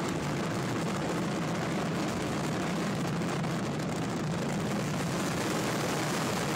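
Steady, dense rumbling noise at an even level, with no break or single bang.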